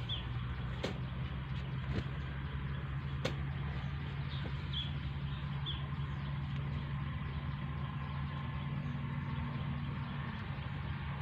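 An engine running steadily at a low, even pitch, with a few short high chirps and scattered clicks over it.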